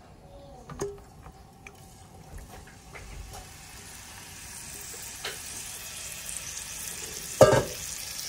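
Marinated chicken pieces scraped with a silicone spatula from a bowl into an oiled hot pan, with light scraping clicks and then a sizzle that builds steadily as the chicken settles in the oil. A single loud knock about seven and a half seconds in.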